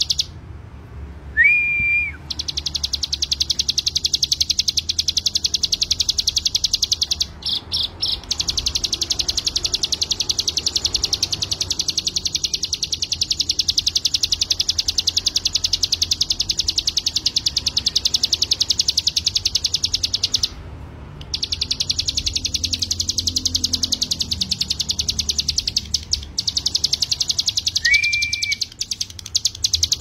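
Ciblek gunung (brown prinia) singing: long, very fast, evenly repeated high trills, broken by short pauses about 7 and 20 seconds in, with a brief clear whistled note near the start and again near the end.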